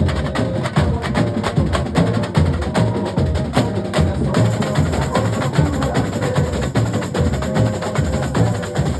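Carnival comparsa batería, a drum and percussion ensemble, playing a fast, dense rhythm: deep bass drums under quick, sharp higher strokes.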